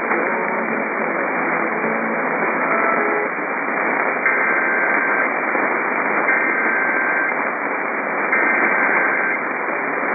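Heavy radio static from weak reception, with faint fragments of other audio in the first few seconds. About four seconds in, three EAS header bursts, the screechy two-pitch digital data tones, come through the static, each about a second long with a second's gap between them, marking the start of an alert.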